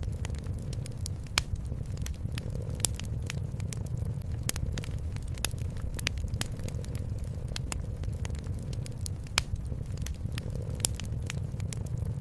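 Wood fire crackling, with frequent irregular sharp pops over a steady low rumble; two pops stand out louder, one early and one near the end.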